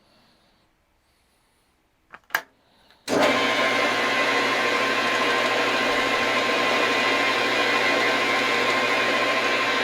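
Metal lathe switched on after a couple of clicks, starting abruptly about three seconds in and then running steadily with a constant hum and whine.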